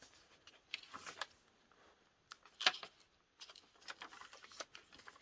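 Paper rustling with light taps and clicks as the junk journal's paper pages are turned and handled. The sharpest rustle comes about two and a half seconds in.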